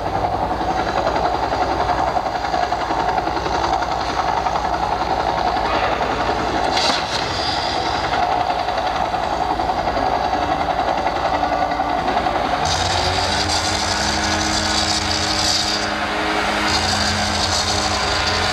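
Small motorboat engine running steadily, then revving up about two-thirds of the way in, rising in pitch and holding at speed, with the hiss of water spray as the boat throws up a wall of water.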